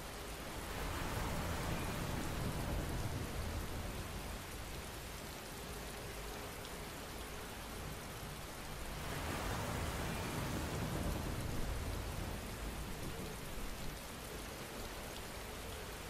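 Steady rain falling, swelling louder twice: about a second in and again a little past the middle.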